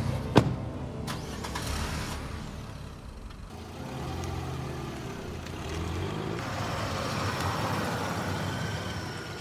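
A sharp click about half a second in, then a car engine running as the car drives off. A broad swell of road noise builds near the end.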